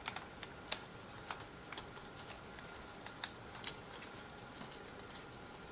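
Faint, irregular small clicks and taps as a side handle is twisted and fitted onto a cordless mini chainsaw, bunched near the start and again about three seconds in.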